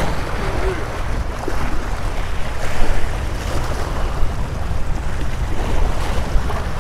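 Small surf waves washing and splashing against the granite blocks of a rock jetty, with wind buffeting the microphone as a steady low rumble.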